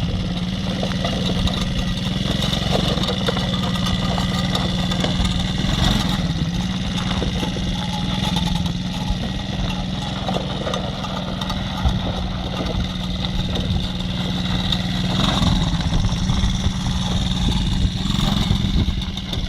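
110cc mini quad's small single-cylinder engine running at a steady, even pitch throughout, without hard revving.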